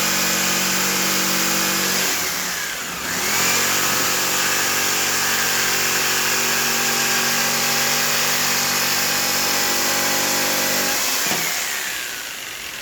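Electric power saw running steadily on a worn blade. Its speed dips and picks back up a couple of seconds in, then it is switched off and whines down near the end.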